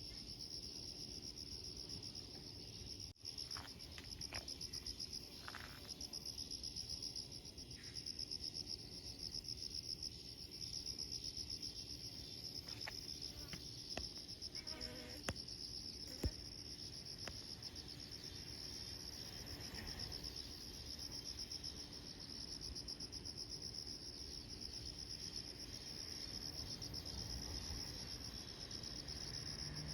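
Insects chirring in a steady, rapidly pulsing high trill, with a few sharp clicks around the middle.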